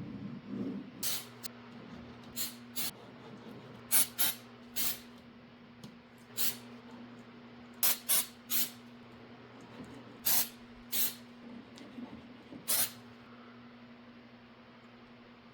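About fifteen short, sharp hissing scrapes, some in quick pairs, over a steady low hum.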